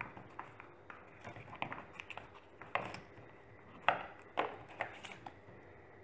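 Light clicks and taps of small repair tools being handled: a precision screwdriver lifted out of its plastic kit tray. A few sharper clicks come around three to four and a half seconds in.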